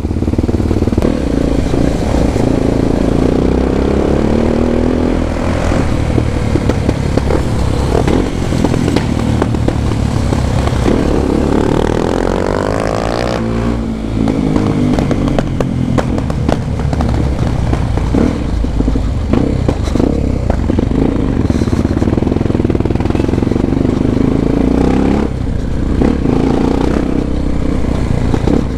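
Honda XR 250 Tornado's single-cylinder engine running through a Belparts Classic aftermarket exhaust while the bike is ridden, the revs climbing and dropping through the gears. One long rise in revs about halfway through cuts off suddenly.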